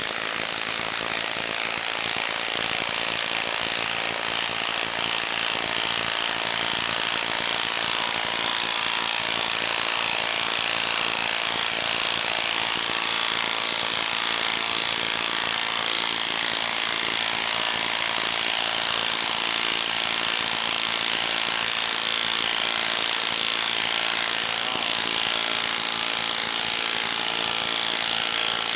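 Milwaukee M18 Stubby 1/2-inch cordless impact wrench hammering without a break as it drives a 10-inch lag screw into a wood round. It works hard under heavy load, a stress test for the motor.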